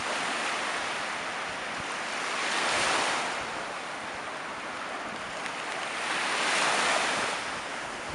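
Sea waves washing in on a shallow bay, a steady rush that swells louder twice, about three seconds in and again near the end. Wind buffets the microphone throughout.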